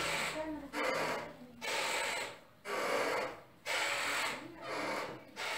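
Heavy, rapid breathing close to the microphone: rasping breaths about once a second from a frightened person during strong earthquake shaking.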